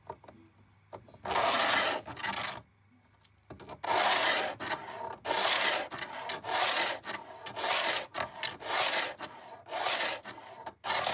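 Fret-leveling beam rubbed back and forth along the stainless steel frets of an ebony fretboard, leveling the frets. Each stroke is a gritty scrape: one stroke about a second in, then a steady run of strokes at just over one a second from about three and a half seconds in.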